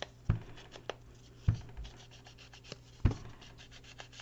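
Ink pad being rubbed and dabbed along the edges of a paper pocket on a tabletop, with small scratchy rubs and three dull thumps.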